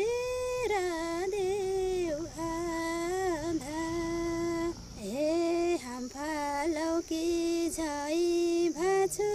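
A woman singing a Nepali folk song with no accompaniment, holding long drawn-out notes with wavering, sliding ornaments and brief breaks for breath.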